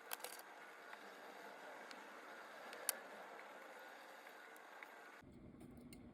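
A few faint, sharp metallic clicks of watchmaker's tools, tweezers and screwdriver, touching parts of an Omega cal.1012 movement as it is taken apart, irregularly spaced with the loudest about three seconds in, over a steady faint hiss.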